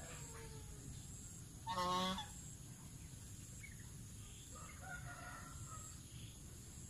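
A white domestic goose gives a single short honk about two seconds in. Fainter bird calls follow a few seconds later over a steady high buzz.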